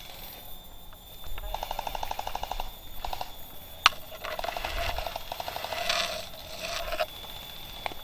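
Gel blasters firing full-auto bursts: rapid rattling strings of shots, many per second. One burst comes about a second and a half in, a short one near three seconds and a longer one from about four to seven seconds, with one sharp crack just before four seconds.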